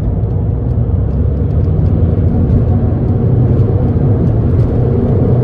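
Car engine and tyre noise heard from inside the cabin as the car accelerates hard up to motorway speed: a steady, loud low rumble.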